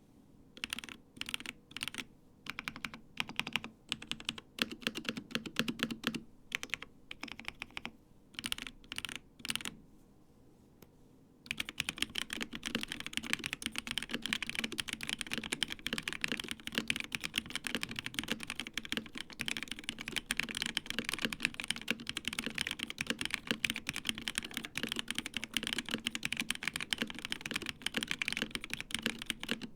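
Typing on a Melgeek Modern97 mechanical keyboard with Kailh Sonic53 switches. For about the first ten seconds the keystrokes come singly and in short runs, then there is a short pause, and from about eleven seconds in the typing is fast and continuous.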